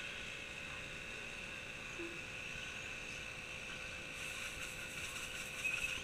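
1/10-scale radio-controlled short course trucks running on a dirt track, their motors giving a steady high whine, a little louder near the end.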